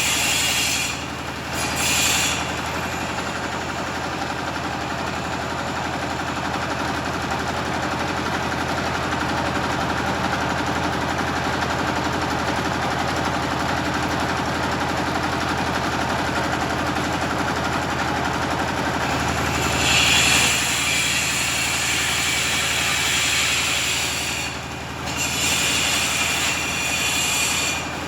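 Generator engine running steadily with a constant hum. Over it a tile cutter cuts in shrill, loud stretches: briefly near the start, then for several seconds from about two-thirds of the way in, with a short break before a final cut near the end.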